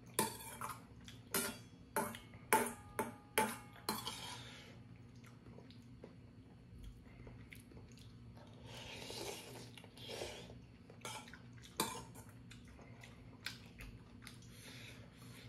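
Metal chopsticks and spoon clinking against a stainless steel pot, with about eight sharp strikes and short ringing in the first four seconds and one more near the middle. Noodles are slurped about nine seconds in and again near the end.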